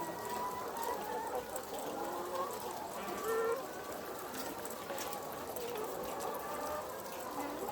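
A flock of chickens clucking and calling, many birds at once, with overlapping short calls and no single bird standing out.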